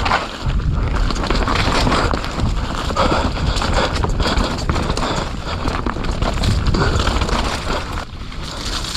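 Mountain bike ridden fast downhill on a wet dirt trail: steady tyre and wind noise on the camera microphone, with constant rattling and knocking of the bike over rough ground.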